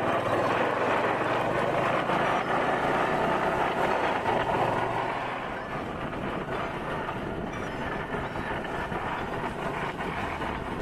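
Motorcycle tricycle riding along a road: a steady rush of engine, wind and road noise that gets a little quieter about five seconds in.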